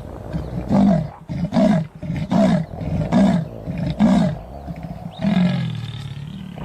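Leopard calling in its rasping sawing call: six coarse grunting strokes about one a second, the last one drawn out longer.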